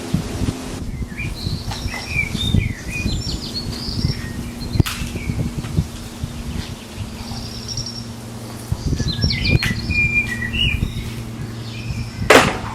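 Small songbirds chirping and twittering in two spells, over a low steady hum and scattered low knocks. Near the end comes a brief loud rush of noise.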